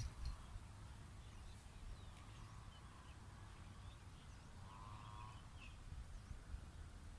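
Faint outdoor ambience: scattered distant bird chirps over a low steady rumble, with a short warbling trill about five seconds in.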